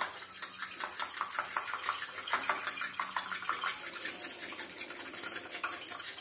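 A metal spoon beating an egg in a ribbed glass bowl, with rapid, steady clinking and scraping against the glass.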